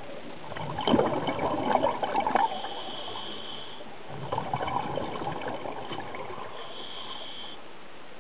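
A scuba diver's breathing heard underwater through the regulator: two exhalations about four seconds apart, each a gurgling, crackling rush of bubbles lasting a second or two. Each is followed by a brief thin high tone.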